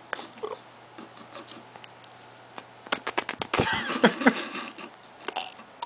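A person's lip and breath noises as chapstick is rubbed on the lips: faint smacks and clicks, then about three seconds in a quick run of sharp clicks leading into a louder breathy burst lasting under a second.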